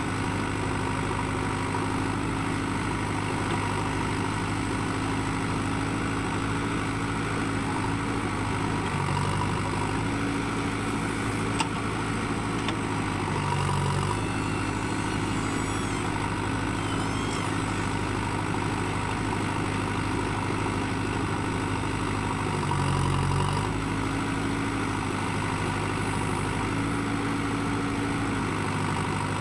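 JCB 3DX backhoe loader's diesel engine running steadily while the backhoe digs and swings loads of sand. Its note shifts and swells briefly a few times as the hydraulics take load. There is a single sharp click about a third of the way in.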